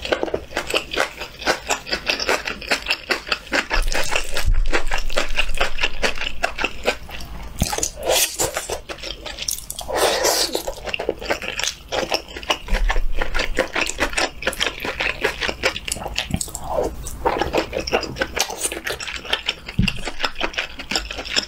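Close-miked chewing of a mouthful of spicy octopus fried rice: rapid wet smacking and squelching mouth sounds, with a fresh spoonful taken about ten seconds in.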